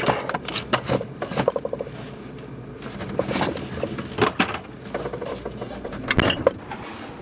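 Bottles and jars knocking and clinking against each other and the refrigerator shelves as a bottle is lifted out of the fridge, a string of short sharp knocks.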